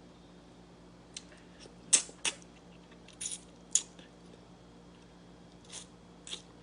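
Close-up eating sounds from a stewed fish head: a handful of short, wet mouth smacks and clicks at irregular intervals, the loudest about two seconds in.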